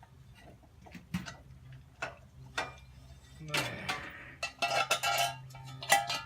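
Metal clinking and clattering of hand tools against the parts of a rusty metal toy excavator as it is being taken apart. A few separate clicks come first, then a denser run of clatter with brief metallic ringing from about three and a half seconds in.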